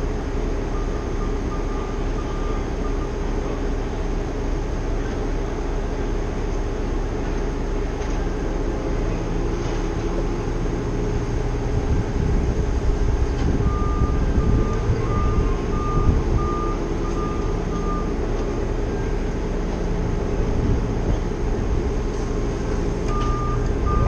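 A heavy truck's engine running steadily close by, louder for several seconds midway. A backup alarm beeps in three runs of short, even beeps: near the start, through the middle and again near the end.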